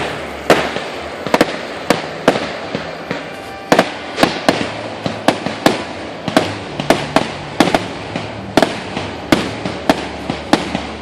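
Fireworks display: a steady run of sharp bangs, roughly one or two a second, over a continuous background din.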